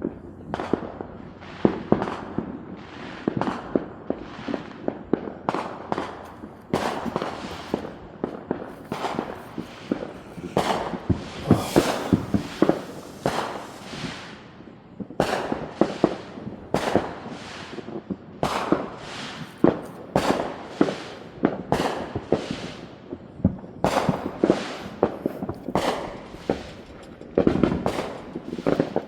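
Fireworks going off outside, heard from indoors: a steady barrage of sharp bangs and crackles, several a second, each with an echoing tail.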